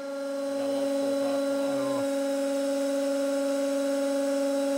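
150-ton hydraulic press's pump running with a steady hum as the ram slowly presses down on an aluminium bicycle crank, loading it toward failure. The hum starts up right at the beginning.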